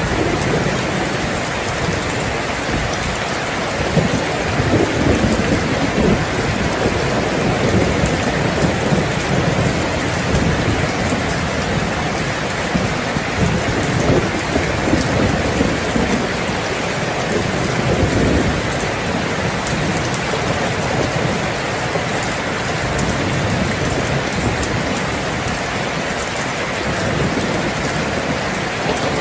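Heavy rain falling steadily, with low rolling thunder that swells and fades a few times underneath.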